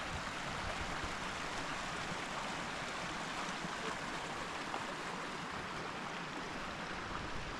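A creek flowing, a steady even rush of water.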